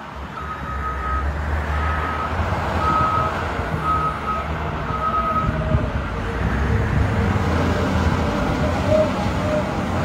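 Caterpillar 950K wheel loader's diesel engine running while its backup alarm beeps five times, about once a second, stopping about halfway through. A wavering whine comes in near the end over the engine.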